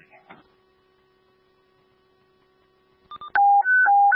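Dispatch radio alert tone over a scanner. After a click and a short beep about three seconds in, a loud two-pitch tone alternates low and high about every quarter second, the attention signal before a fire dispatch broadcast. Before it there is only faint steady radio hum.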